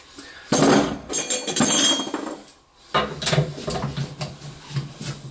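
Metal clinking and scraping: a loud rasping stretch lasting about two seconds, then lighter irregular clinks and rubbing.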